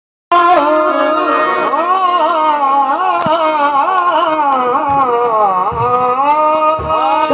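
Qawwali singing: a male lead voice sings a long, ornamented gliding line over steady held harmonium chords, with a few low thumps. The sound cuts in abruptly just after the start.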